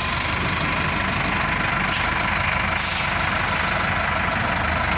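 Diesel engine of a Mercedes-Benz city bus idling steadily, heard close beside a wheel, with a brief hiss about halfway through.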